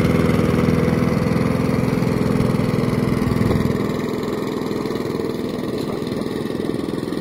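Push mower's small single-cylinder engine running steadily while it is towed across the grass, getting a little quieter after about three and a half seconds as it moves away.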